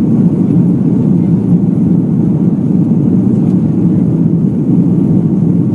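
Airbus A330 airliner's jet engines and rushing air, a steady low rumble with no change, as the plane climbs after takeoff.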